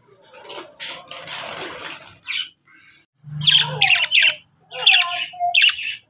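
Rustling and scraping with a few sharp clicks for about two seconds, then budgerigars squawking and chattering in quick, shrill bursts through the second half.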